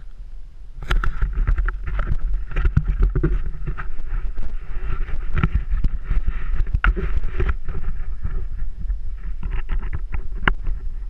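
Mountain bike rolling down a loose gravel track, with tyres crunching over stones and frequent sharp rattles and knocks from the bike. Wind rumbles on the helmet-mounted camera's microphone. The sound gets louder about a second in.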